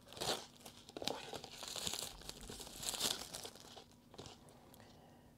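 Clear plastic shrink-wrap being torn open by its pull strip and peeled off a paper instant-rice tub, crinkling and crackling for about four seconds before dying away.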